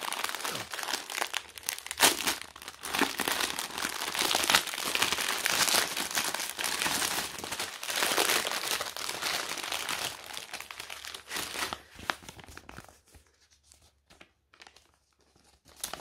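Clear plastic wrapping crinkling and rustling as it is handled and worked off a rolled canvas, dense for about twelve seconds, then dropping to a few soft rustles.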